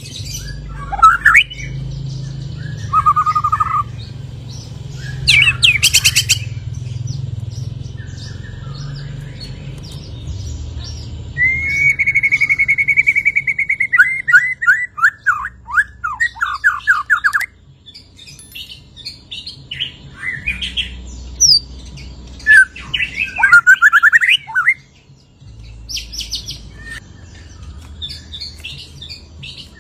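White-rumped shama (murai batu) singing a varied song of whistles, chips and trills in separate phrases with short pauses, including one long rapid trill near the middle. It is a bird just out of its molt, singing through its full repertoire of learned phrases.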